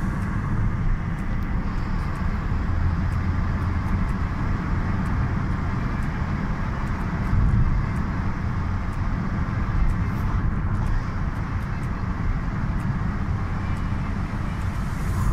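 Steady road and engine noise heard from inside a moving car's cabin: a low, even rumble of the engine and the tyres on the road.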